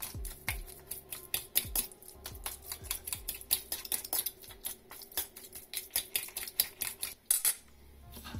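A fork and spoon clinking and scraping against a stainless steel mixing bowl as minced raw beef is stirred into a sauce. The clicks come fast and unevenly, several a second, and stop shortly before the end.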